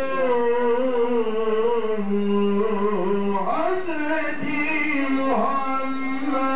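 A man's solo voice chanting in the melismatic Islamic style, holding long notes that waver and turn, with short breaths between phrases.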